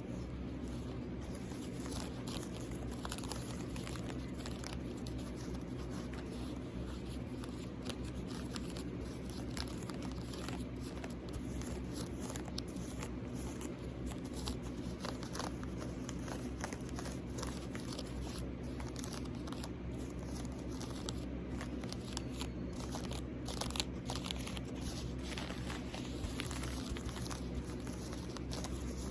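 Close-miked ASMR scratching and tapping on a small object: a dense, uneven run of small clicks and scrapes over a constant low hum.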